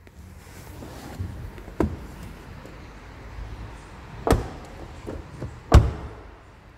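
A 2019 Skoda Superb Sportline wagon's rear door being opened and shut as someone climbs out: a click about two seconds in, a thump a little after four seconds, and the loudest thump near six seconds as the door closes, with rustling and shuffling in between.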